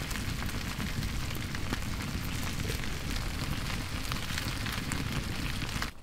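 Wood fire crackling and hissing in a camp wood stove, a steady hiss dotted with many small pops.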